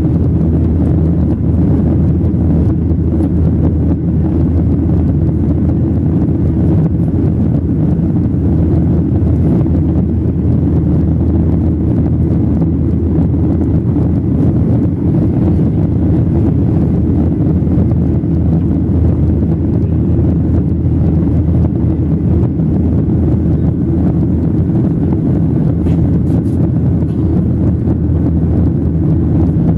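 Steady cabin noise of a Boeing 737-800 in flight, heard from a window seat over the wing: a loud, even low rumble of its CFM56 jet engines and the airflow over the fuselage, with no changes.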